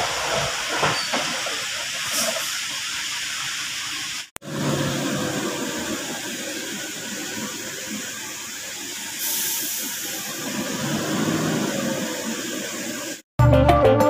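Volvo truck's diesel engine running on a dirt road, a low rumble under a steady hiss of noise on the microphone. The sound breaks off briefly about four seconds in, and music with a strong beat takes over near the end.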